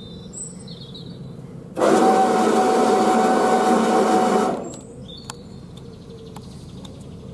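Narrowboat bow thruster running in a single burst of about three seconds, a steady mechanical whine with a held tone that starts abruptly about two seconds in and cuts off, pushing the bow sideways.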